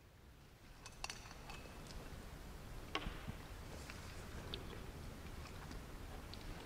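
Faint scattered clicks and light glass knocks as a wine bottle is handled over a glass jug and table glassware, in a quiet room with low hum.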